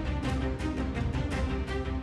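Background music with a steady beat and sustained held notes.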